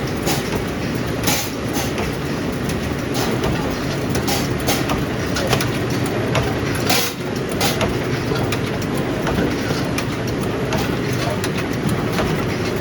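Soap-making machinery running in a factory: a steady mechanical din with frequent irregular clacks and knocks.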